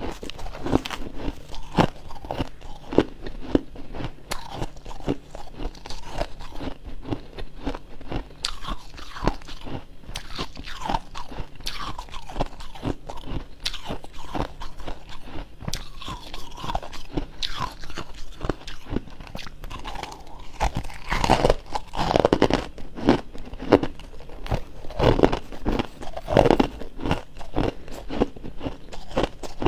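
Freezer frost being bitten and chewed, a continual run of crisp, irregular crunches that grows louder and denser about two-thirds of the way through.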